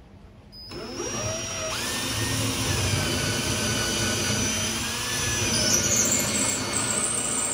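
Power drill starting up about a second in, its motor rising in pitch, then running steadily as it bores a pilot hole into the wall for a lag bolt.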